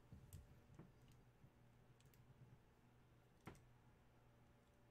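Near silence: room tone with a few faint clicks, the clearest about three and a half seconds in.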